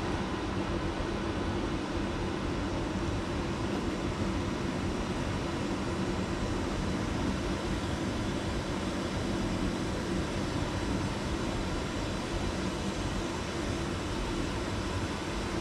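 Steady machine hum with an even hiss, unchanging in level.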